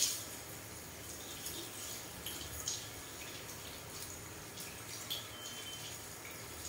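Water running from a shampoo-basin hand sprayer over a man's hair and into the basin, a steady hiss with a few sharper splashes, one right at the start.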